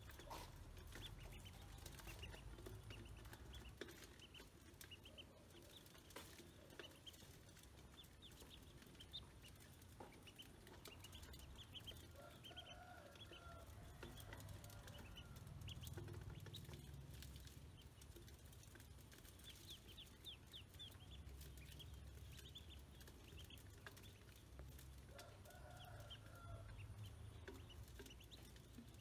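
Ducklings peeping faintly in many short, high chirps while pecking grain from a metal bowl, with scattered sharp taps. A lower clucking call sounds twice, near the middle and near the end.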